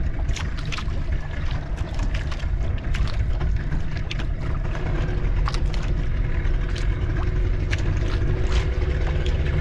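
Steady low rumble and wind noise on a small boat at sea, with scattered light clicks and knocks.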